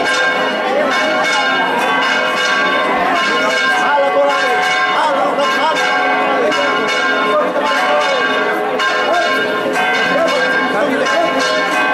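Church bells pealing without a break, with strike after strike over a lingering ring, and crowd voices beneath.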